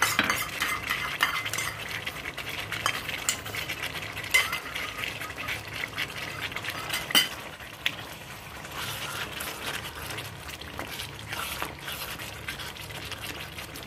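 Silicone spatula stirring and turning chicken pieces through a thick curd and cashew masala in a heavy-bottomed pan, with irregular soft scrapes and knocks against the pan over a light sizzle of the gravy cooking. The stirring eases off about eight seconds in.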